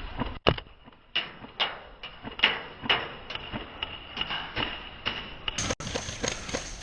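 Airsoft guns firing single shots: a run of sharp snaps at uneven spacing, a little under two a second.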